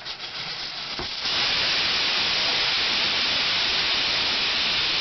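Hawkins pressure cooker's weighted valve blowing off steam: a faint hiss, then about a second in a loud, steady rush of venting steam. The release is the sign that the cooker is up to pressure, and with the heat turned low an occasional blow-off like this means the setting is right.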